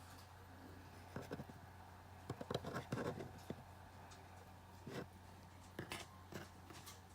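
Small 3D-printed plastic butter knife scraping and knocking as it works peanut butter, in short scattered clusters about a second in, around three seconds in, and again near five and six seconds, over a low steady hum.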